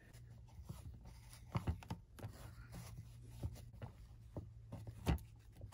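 Paper towel rubbing and scrubbing over a vintage calculator's plastic case, wiping off caked-on grime, with scattered light clicks and scrapes.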